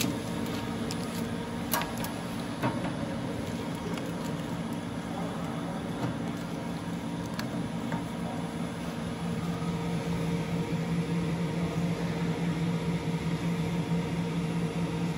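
Steady mechanical hum of a conveyor-fed X-ray food inspection machine running, growing a little louder in the second half. A few light clicks from plastic-wrapped bars being handled on its stainless steel come in the first few seconds.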